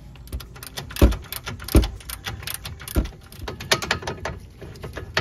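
Hand ratchet clicking in short strokes as a lower control arm mounting bolt is worked loose, with three heavier metal knocks, at about one, two and three seconds in.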